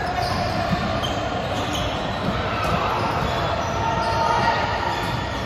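Busy indoor volleyball hall: volleyballs being hit and bouncing on the hardwood courts, a few sharp thuds standing out over a steady echoing din of players' voices.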